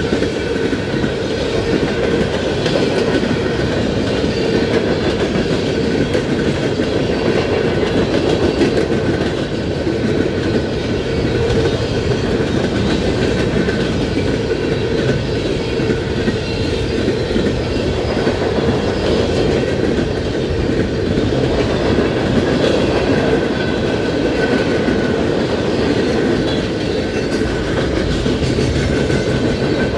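Freight train cars rolling past at close range: a steady rumble and clatter of steel wheels over the rails, with a faint high squeal coming and going.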